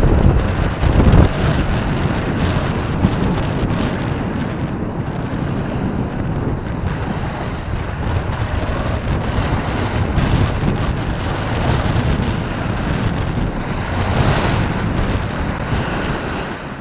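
Rough reservoir waves slapping and splashing against a concrete slipway and shingle shore, with strong wind buffeting the microphone.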